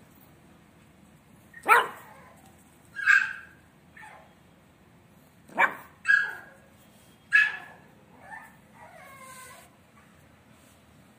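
French bulldog puppies yapping: about six short, high-pitched barks spaced a second or two apart, and a falling whine about nine seconds in.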